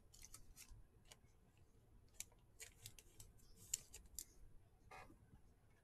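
Near silence, broken by faint, scattered clicks and flicks of trading cards being handled and flipped through.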